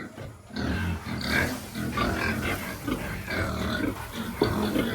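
Pigs grunting at feeding time, starting about half a second in and going on in irregular bursts.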